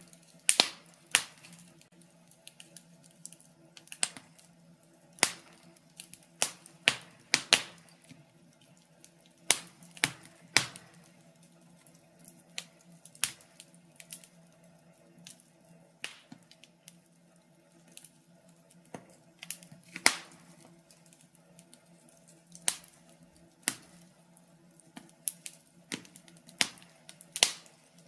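Wood fire in a fireplace crackling, with irregular sharp pops and snaps, roughly one or two a second, over a faint steady low hum.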